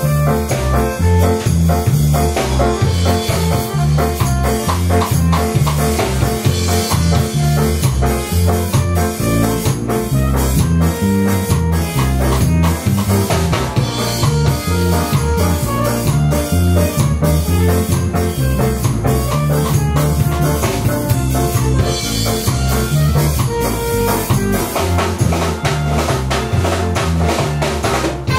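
Live band playing an instrumental over a heavy, rhythmic bass line, with drum kit, electric bass and keyboard; a trumpet comes in near the end.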